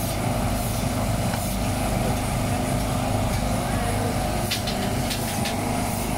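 Steady low engine drone, with people talking and a few short clicks about four and a half to five and a half seconds in.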